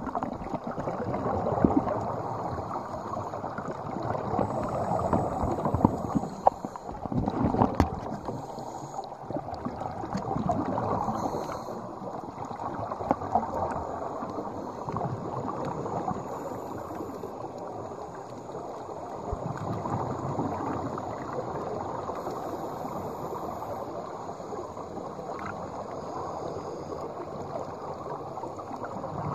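Muffled underwater sound: a steady rush of water with bubbling and gurgling that swells and fades, from scuba divers breathing out through their regulators. A few sharp knocks come about six to eight seconds in.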